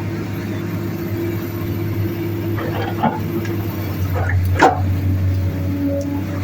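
Heavy diesel earthmoving machinery, an excavator and a bulldozer, running steadily under load with a deep engine drone. Sharp knocks break in about three seconds in and, loudest, shortly before the end.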